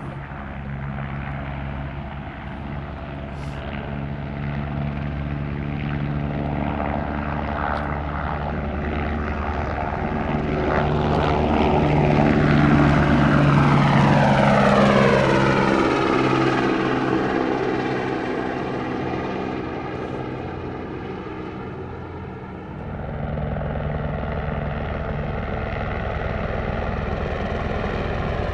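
Airbus H125 helicopter's single turboshaft engine and main rotor running as it climbs out and flies past. The rotor beat and turbine whine swell to their loudest about halfway through, then the whine slides down in pitch and fades as it passes. Near the end it is steady and a little louder again.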